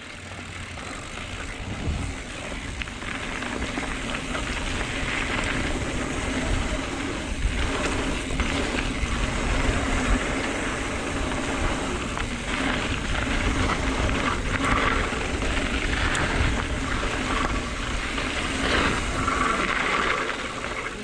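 Mountain bike being ridden down a dirt trail: steady rolling tyre and riding noise, with a few sharper jolts along the way.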